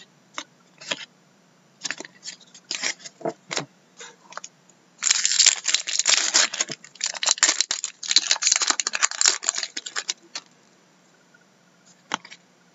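Trading cards handled and flicked with a few sharp clicks, then from about five seconds in a foil Upper Deck Black Diamond hockey card pack torn open and crinkled for about five seconds. A couple more card clicks follow near the end.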